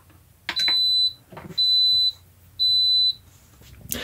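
Instant Pot Ultra electric pressure cooker beeping three times, steady high-pitched beeps about half a second long and a second apart, after being set to sauté; the beeps signal that the program is starting to heat.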